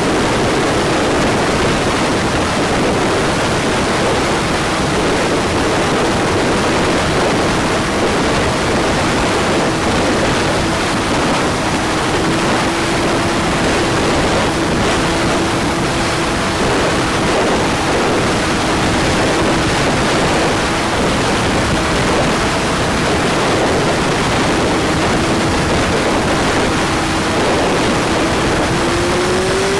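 Wind rushing over the microphone of a Honda CG125 motorcycle on the move, with the air-cooled single-cylinder engine's drone underneath at a steady pitch. The engine note rises near the end.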